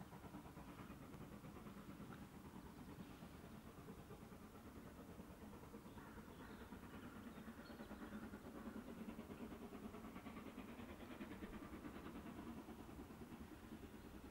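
Steam locomotive working a passenger train, heard faintly and growing a little louder from about eight seconds in as it approaches.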